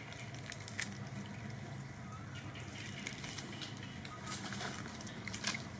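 Scattered small crackles and rustles of dry leaf litter over a low steady hum, with a few faint short chirps.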